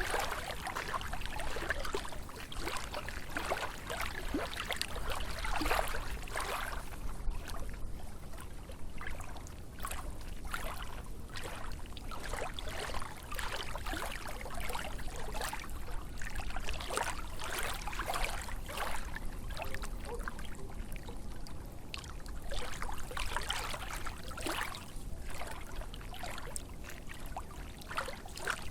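Small lake waves lapping and splashing, coming in irregular surges every few seconds.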